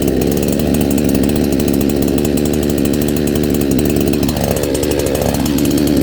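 CMA-680 68cc two-stroke chainsaw engine running steadily, its pitch dipping once and recovering about four seconds in.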